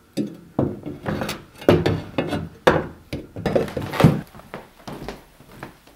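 A quick, irregular run of thumps and knocks on wood, about a dozen, the loudest about four seconds in.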